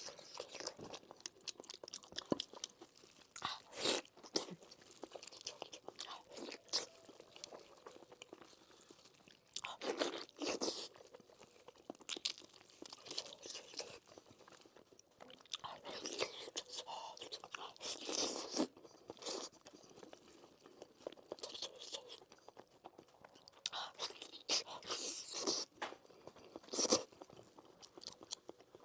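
Close-miked mouth sounds of someone eating braised pork knuckle: irregular bites and wet chewing of fatty meat and tendon, with louder clusters of bites every few seconds.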